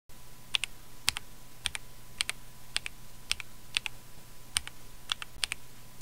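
Mechanical keyboard keys pressed one at a time, about two a second. Each press is a sharp, quick double click.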